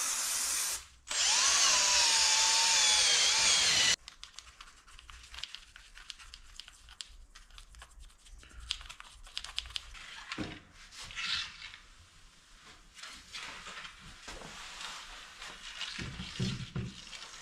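An aerosol cleaner spray hisses for under a second, then a Makita cordless drill with a round wire brush spins against an engine part for about three seconds, its whine wavering as the brush bites. After that come quieter rubbing, scraping and clicks of parts being handled and a rag wiping the table.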